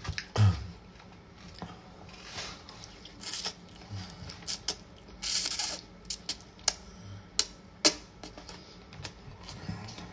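Scattered clicks and scrapes of a metal razor, used as a fork, against a foam takeout container and the spaghetti. About five seconds in there is a short hissy slurp as a strand of spaghetti is sucked in, and a few sharp clicks follow.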